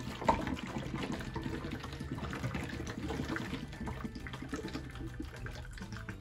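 Water glugging and gurgling as a full plastic Smart Water bottle drains through a Sawyer bottle coupler into an empty bottle below, with a rapid, irregular bubbling as air pushes up into the top bottle.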